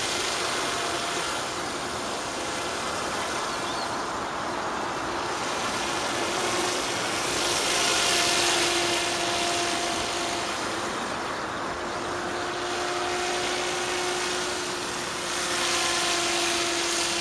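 Steady drone of a Magnus-effect model aircraft's motor in flight. It holds a steady pitch with slight shifts over a constant hiss, and swells louder about eight seconds in and again near the end.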